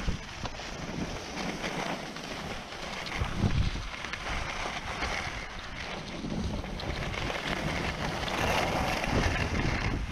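Wind buffeting the microphone of a skier's worn camera, in gusty low rumbles, over a steady hiss of skis sliding on groomed snow.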